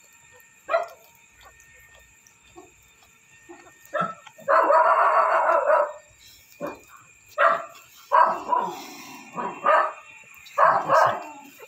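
Philippine native dog puppies and an older dog at play, barking in short bursts. The barks are scattered at first, then there is one longer, louder outburst about four and a half seconds in, followed by a run of quick barks in the second half.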